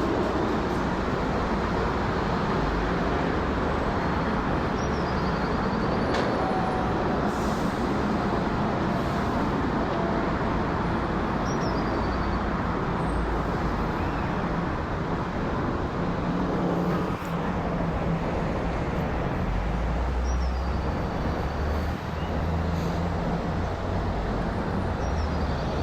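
Jet engines of a United Boeing 777-200ER on departure climb-out: a loud, steady roar, with a deeper hum in the last several seconds. A short, high falling chirp repeats every few seconds over it.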